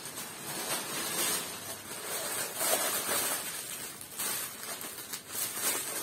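Thin plastic shopping bags crinkling and rustling as they are rummaged through and a knotted bag is pulled at to open it, a continuous uneven crackle.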